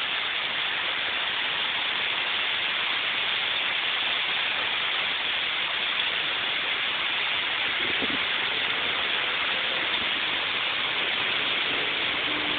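Heavy rain pouring down steadily in a severe thunderstorm, a dense, even hiss with no breaks.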